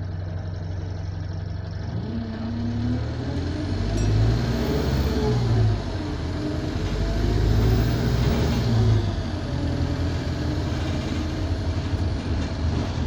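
Alexander Dennis Enviro200 bus's diesel engine, heard from inside the saloon, pulling hard and rising in revs, dropping back twice as the gearbox changes up, with a high turbo whistle rising and falling alongside; the turbo is burst.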